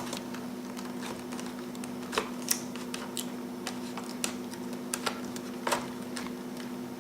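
Small plastic and metal clicks and taps, about a dozen irregular ticks, as a 2.5-inch hard drive in its clipped-on caddy is handled and pushed into the side drive bay of an IBM R52 laptop. A faint steady hum runs underneath.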